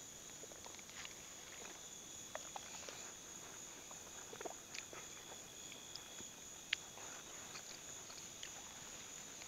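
Insects trilling steadily in two high, even tones, with scattered faint clicks and taps and one sharper tick about two-thirds of the way through.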